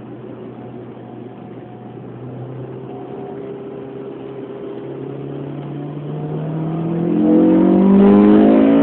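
Honda S2000's four-cylinder engine, breathing through a K&N air filter and a home-built exhaust, running steadily and then revving up, its note rising in pitch and getting much louder over the last few seconds before starting to drop right at the end.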